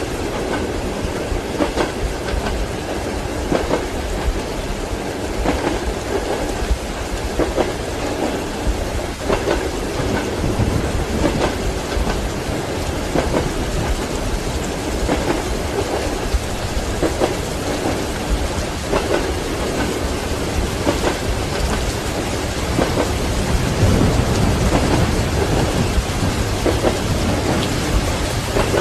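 Steady heavy rain mixed with train wheels knocking over rail joints, about one knock every two seconds. A low rumble of thunder swells about three-quarters of the way through.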